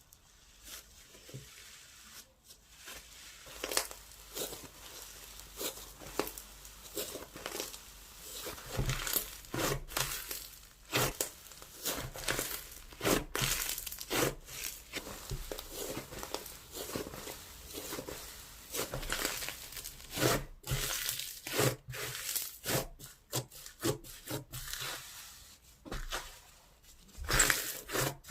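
'Berry Pie' slime played with by hand: pressed, squished and stretched, giving irregular sticky pops and crackles in quick clusters.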